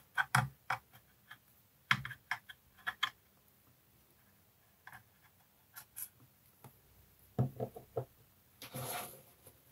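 Scattered light clicks and taps in small clusters, with a brief scratchy rub near the end: painting brushes and supplies being handled on a hobby desk.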